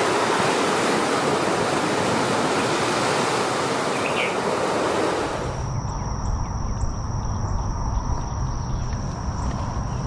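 Outdoor ambience: a steady rushing noise that cuts off abruptly about five seconds in. It gives way to low wind rumble on the microphone with a faint, steady high whine.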